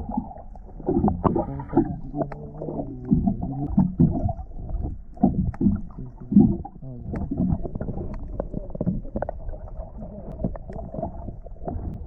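Water sloshing and gurgling around a small boat, muffled, with irregular surges and knocks.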